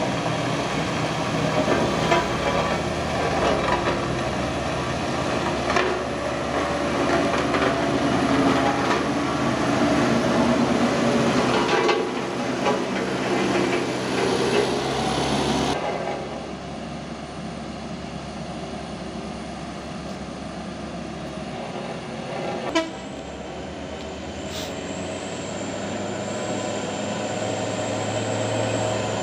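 Diesel engine of a single-drum road roller running close by with a steady hum. About sixteen seconds in, the sound drops abruptly to a quieter, more distant engine drone, with one sharp click later on.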